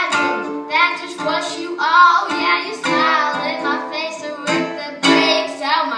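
A young boy singing solo in a high, clear voice, accompanying himself on a small strummed acoustic string instrument.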